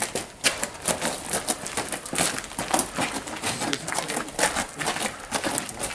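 Several people's footsteps crunching on gravel, an irregular run of short scuffs and crunches.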